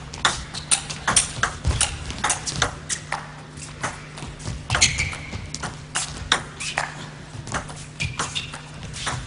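Table tennis play: the ball clicking sharply off rackets and the table in quick strokes. There are short shoe squeaks on the hall floor, one about five seconds in.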